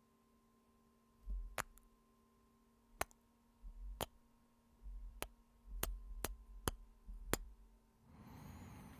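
Close-miked kisses: a string of about eight sharp lip-smack clicks over several seconds, with soft low thumps from the microphone alongside them. A soft breath out follows near the end.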